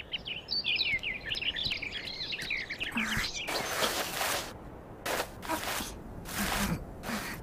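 Birds chirping and twittering in a cartoon sound track for the first three seconds or so. After that come several short rustles of leaves and grass, as of something moving through the bushes.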